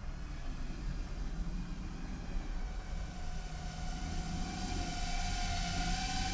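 FPV quadcopter's brushless motors whining over a steady wind rumble; from about halfway the whine settles into one steady tone with overtones and grows louder.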